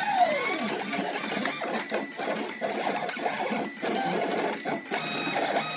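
Snappy 3.1 RepRap 3D printer running a print, its stepper-driven axes buzzing and whirring through quick back-and-forth moves that start and stop many times. This is printing with the bad X-axis vibration that the owner suspects comes from low motor current, high acceleration or jerk settings, or missing lube.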